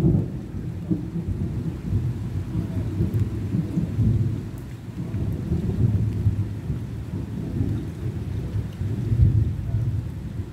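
Rolling thunder, a long low rumble that swells and fades several times, over falling rain.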